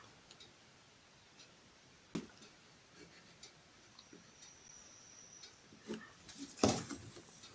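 Pencil and ruler on paper during drawing: scattered light taps and scratches, a sharp knock about two seconds in, and a louder scrape-and-rustle near the end.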